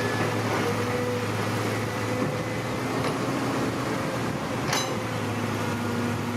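Electric motors of a radio-controlled Huina toy excavator running with a steady hum and a whine that shifts in pitch as it works, with one sharp click a little before five seconds in.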